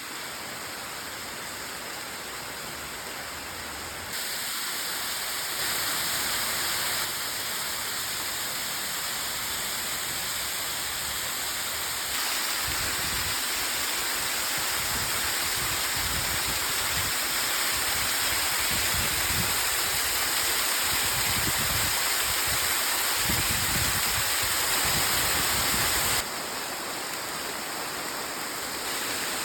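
Steady rush of a 15 m waterfall, its water falling and splashing. The level steps up and down a few times as the shots change, loudest through the middle, where low irregular rumbles come and go.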